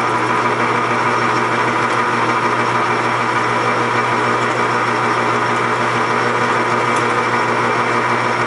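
Metal lathe running steadily at speed, a constant motor hum with several steady tones above it.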